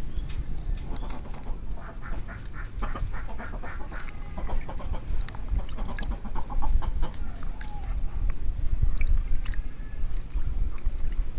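Hens clucking in short, repeated calls, over a steady low rumble and scattered sharp clicks.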